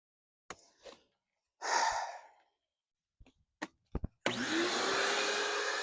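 A vacuum cleaner switched on about four seconds in, its motor whine rising in pitch as it spins up and then running steadily. Before it come a few faint clicks and a short breathy exhale.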